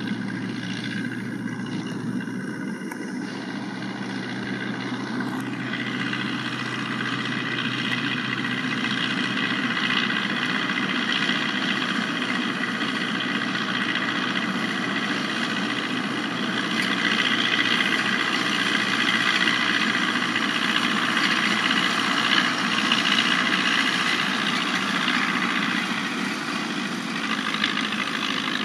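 Tractor engine running steadily under load, driving a straw chopper whose rotor and blower cut stubble and blow chopped straw into a trolley. A dense rushing noise sits over the engine's hum and grows somewhat louder over the first several seconds.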